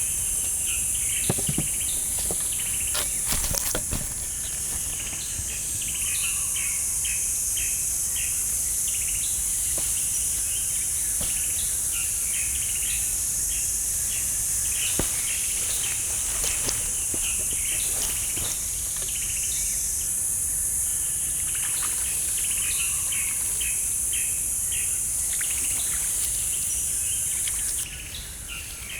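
Steady high-pitched drone of insects with many short bird chirps over it, and a few brief clicks or knocks. The insect drone drops away abruptly near the end.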